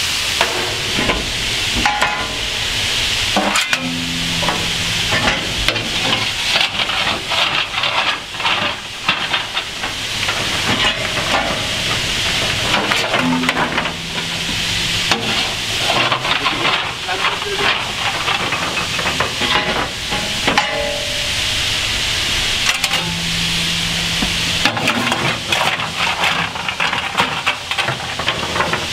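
Steady hiss of steam from a coal-fired South African Class 26 steam locomotive in steam, with frequent scrapes and clatter of a fireman's shovel working coal and firing the firebox.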